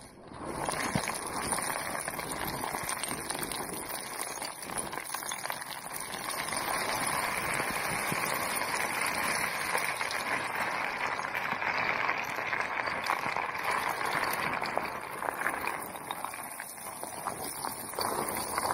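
Loose shale scree crunching and rattling without a break as a person slides down over it, with many small stone clicks through the noise; it grows louder about six seconds in.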